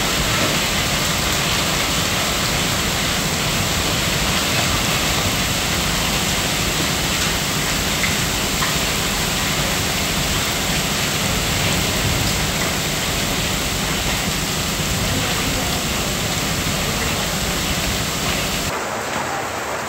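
Hailstones and heavy rain falling together onto a paved street and parked vehicles, a dense, steady hiss; it drops a little in level near the end.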